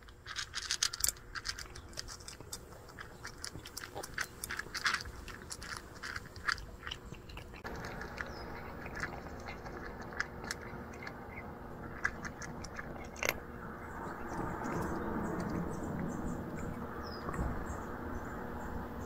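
Tortoiseshell cat crunching dry kibble from a bowl: quick, crisp crunches, busiest over the first eight seconds or so. A steady background rush comes up about eight seconds in, with the crunching still heard over it.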